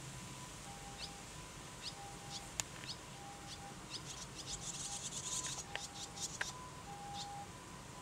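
Fledgling barn swallows calling with short high chirps about once a second, breaking into a dense run of rapid chirps in the middle: begging calls to the parents bringing food. A few sharp clicks sound among them.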